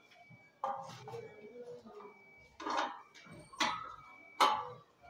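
A few sharp knocks and scrapes of a metal satellite dish being turned by hand on its pole mount, the loudest knock near the end.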